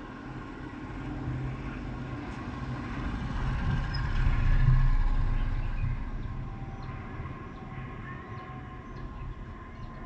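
A passing motor vehicle, unseen: a low engine and road rumble that swells to its loudest about halfway through, then fades away.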